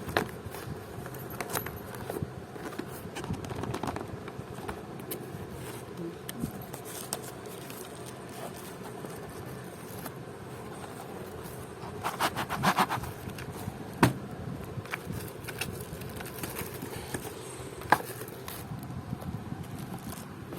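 Packaging of a boxed keyboard being opened by hand: scattered rustles, scrapes and small clicks over a steady background hum, with two sharper clicks in the second half.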